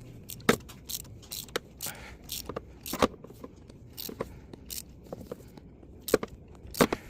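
Sharp, irregular metallic clicks and knocks, one to three a second, from hand tools working the first spark plug loose from the engine.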